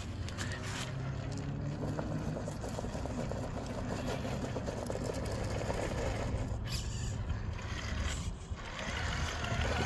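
Cross RC Emo X3 scale crawler's brushed motor and gear drivetrain whirring at low crawling speed as it climbs over rocks, the pitch shifting a little with the throttle.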